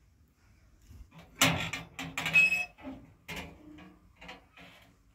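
Sheet-metal wood stove and metal teapot being handled: a burst of sharp metal clanks and scrapes, loudest about a second and a half in, as the firebox door is worked, then a few lighter knocks.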